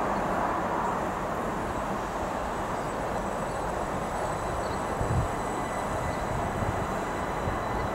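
Class 375 Electrostar electric multiple unit drawing slowly into the platform to stop: a steady rumble and hiss of the train rolling on the rails, with a low thump about five seconds in.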